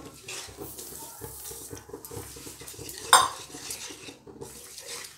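Spatula stirring thick carrot halwa in a nonstick frying pan, mixing in the sugar, with continuous irregular scraping against the pan. About three seconds in, a single loud clank against the pan rings briefly.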